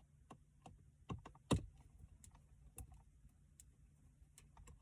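Faint, scattered light clicks and taps of a screwdriver working a dashboard trim screw against plastic trim, with one sharper click about a second and a half in.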